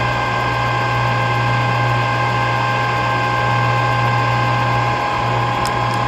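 Harrison M450 gear-head lathe running steadily with its spindle at about 250 RPM and the longitudinal power feed engaged: its 10 hp three-phase motor and headstock gearing give an even hum under a steady gear whine of several tones.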